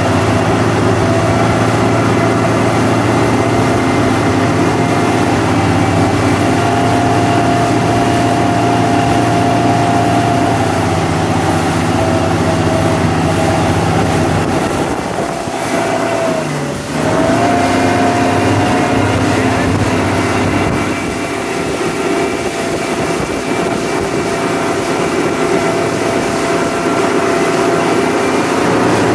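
Motorboat engine running steadily at speed while towing a tube, over the rush of water from the wake. About halfway through its pitch and loudness dip briefly, then climb back up as the throttle is eased and reapplied.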